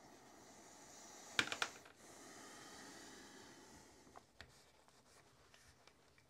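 Microfiber cloth on a cleaning brush rubbing inside an AR-15 upper receiver: faint scrubbing, with a quick cluster of sharp clicks about a second and a half in and a single tick near four seconds.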